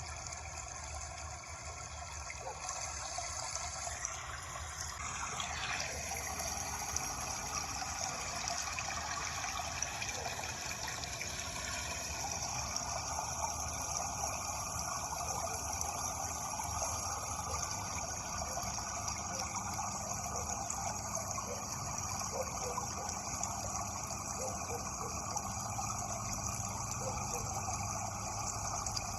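Water running steadily, a continuous even hiss of flowing water.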